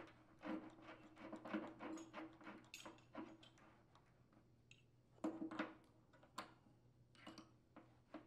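Faint scraping and clicking as a new electric water-heater heating element is threaded by hand into the tank's port and a tubular element wrench is fitted over it. The small clicks come in clusters, with quiet gaps between them.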